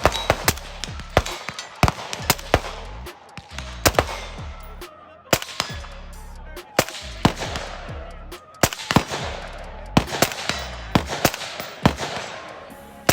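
Downward-ejecting bullpup rifle in 5.7×28 mm firing a long string of rapid single shots at an uneven pace, each crack ringing out with an echo.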